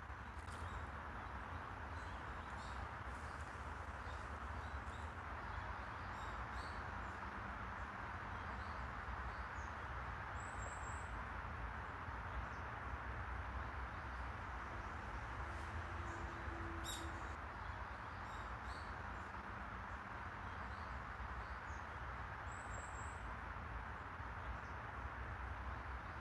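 Outdoor park ambience: a steady, even background hum, with a small bird giving a brief cluster of high chirps twice, about ten seconds in and again about twenty-two seconds in.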